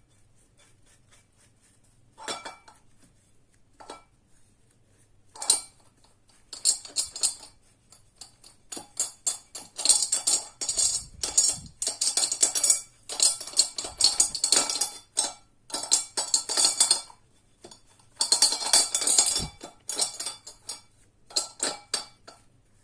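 A bristle brush scrubbing wet brass faucet parts in a glass bowl, in bursts of quick strokes with short pauses between, the brass parts clinking against the glass.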